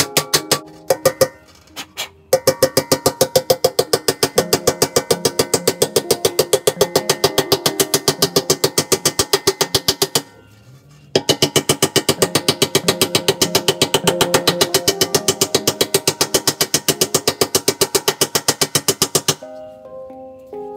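Rapid, even hammer blows on a handpan's thin steel shell, forming the dimple at the centre of the note. The strikes come several a second, and each one makes the steel ring with a pitched tone. The hammering starts with a few scattered blows, runs steadily to a short pause about ten seconds in, then resumes and stops about a second before the end.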